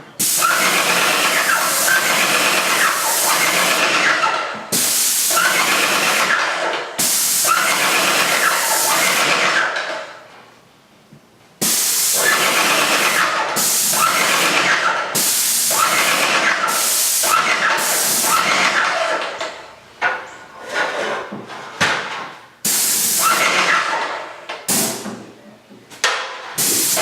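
Paint sprayer spraying primer: a loud, steady hiss that starts and cuts off with each trigger pull, in several long passes and then shorter, choppier bursts near the end.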